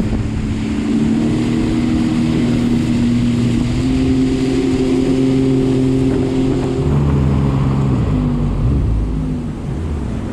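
Jet ski engine running steadily under way on the water. About seven seconds in, its note drops and turns rougher as the throttle is eased off.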